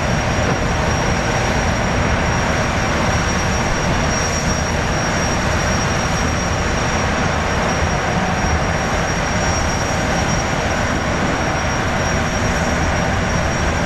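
Jetfoil gas-turbine engines running at the pier: a steady rushing noise with a thin, high, constant whine over it.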